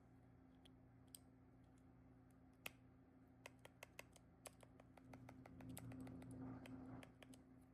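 Faint, scattered small plastic clicks and taps, a resin keycap being handled, over a quiet room with a faint low hum. The clicks start about a third of the way in and come irregularly, several a second at times.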